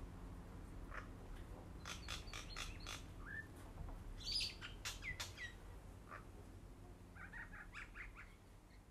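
Small birds chirping: scattered short high calls, a couple of downward-gliding calls about five seconds in, and a quick run of notes near the end, over a faint steady low hum.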